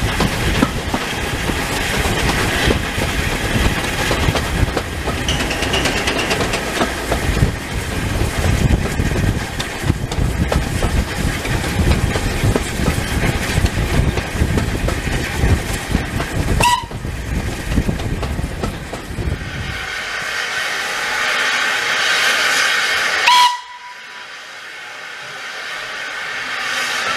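Riding in a coach behind a steam tank engine: steady rail clatter and running noise, with a brief whistle about 17 seconds in. After about 20 seconds this gives way to steam hissing from a standing tank engine, with a short whistle toot near the end. The sound then drops suddenly to a quieter hiss that slowly builds.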